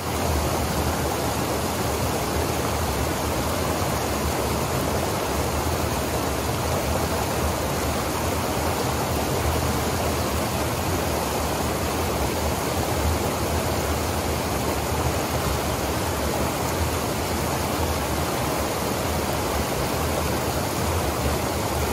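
Creek water rushing steadily over a low rock ledge in a small cascade, close to the microphone.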